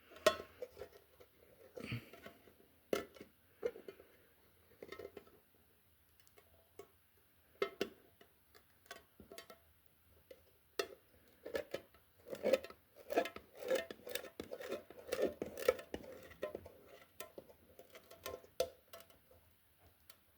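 Pokémon trading cards being handled and flipped through close by: irregular light taps, slides and rustles, busier for a few seconds past the middle.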